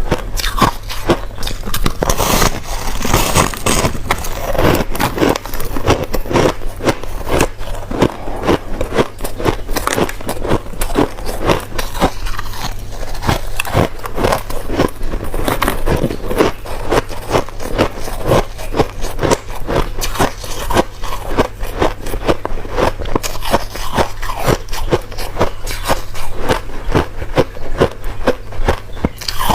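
A person biting and chewing crushed ice in a continuous, irregular run of crunches and crackles, over a steady low hum.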